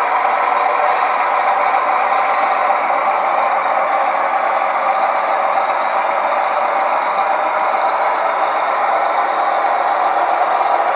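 Sound-equipped model diesel locomotive under throttle control, its sound unit playing a steady diesel engine drone through a small speaker.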